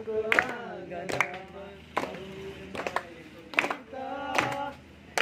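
A group of voices chanting a Deusi song in a sing-song line, with hand claps on a steady beat about once every 0.8 seconds.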